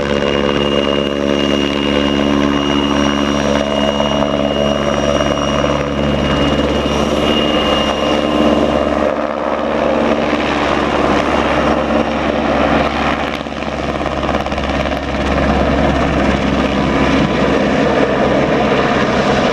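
PZL W-3 Sokół helicopter in flight: a steady beat from its rotor with the noise of its twin turbine engines. A high thin whine is heard through the first half and drops away about nine seconds in, and the sound dips briefly a few seconds later.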